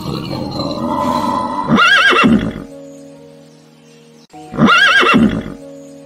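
Horse whinnying twice, each neigh about a second long with a quavering pitch, over background music.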